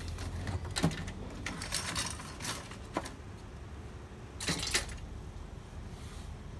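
Scattered sharp clicks and light knocks, a few single ones and a quick cluster of taps: hard plastic parts and small components of a disassembled laser printer being handled.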